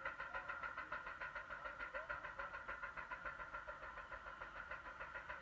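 1935 John Deere Type W two-cylinder power unit running steadily, its exhaust beating evenly at about six pulses a second.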